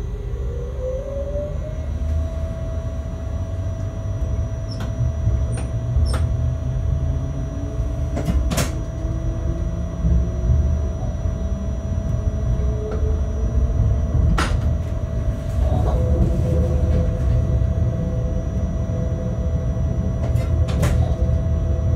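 Bombardier TRAXX BR186 electric locomotive moving off under power: its traction motor whine rises in pitch over the first two seconds and then holds steady, over the low rumble of the wheels on the rails. A handful of sharp clicks come as the wheels run over rail joints and points.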